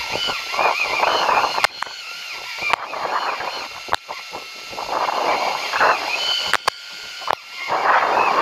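Sea water washing along a fishing boat's hull, with wind, coming in surges every couple of seconds. A few sharp clicks and a high wavering sound sit above it.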